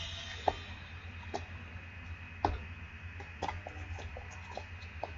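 Sneakers tapping and landing on a concrete sidewalk during squat jumps and side shuffles: irregular sharp taps, the loudest about half a second and two and a half seconds in, with a quicker run of lighter steps a little later, over a steady low outdoor hum.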